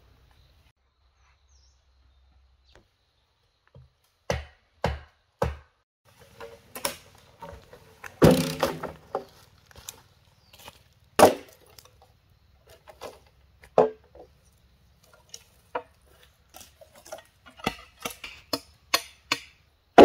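A blade chopping into wood in irregular strokes: three sharp chops about half a second apart, then scattered strikes, then a quicker run of chops near the end.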